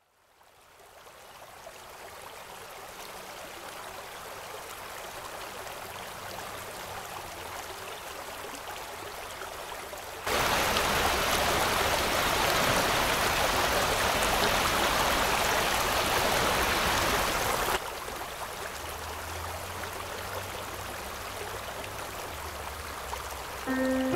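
Creek water rushing, fading in from silence. From about ten seconds in to about eighteen it cuts to a much louder rush of a swollen, flooded creek, then drops back to a quieter flow. Piano music begins right at the end.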